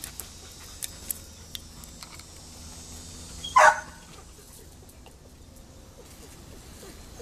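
A dog barks once, a single short bark about three and a half seconds in, with a few faint clicks before it.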